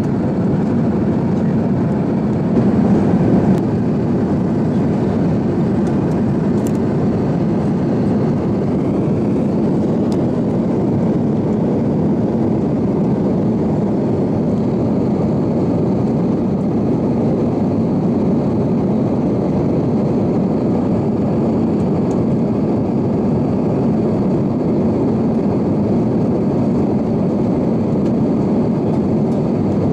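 Steady cabin noise of an Airbus A350-900 airliner in flight, its engines and rushing air heard from inside the cabin, during the descent toward landing.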